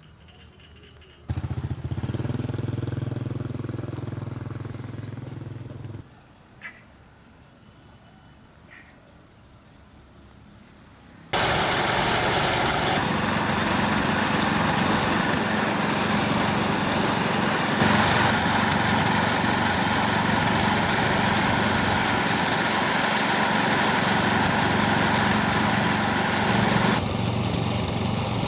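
A small engine running steadily. A first stretch starts abruptly about a second in and lasts about five seconds. A louder, noisier stretch starts abruptly about eleven seconds in and runs until near the end.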